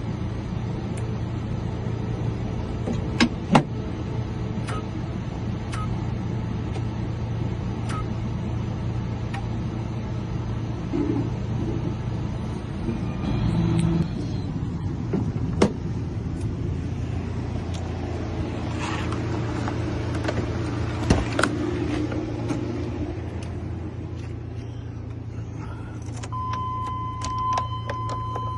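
Steady low mechanical hum with a few sharp clicks and clinks of metal and keys. Near the end a steady high beep sounds.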